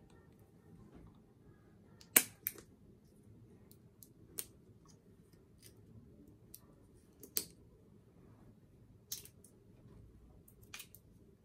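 Irregular sharp plastic clicks and snaps from the cap of an unopened squeeze bottle of acrylic paint being worked open. The loudest snap comes about two seconds in.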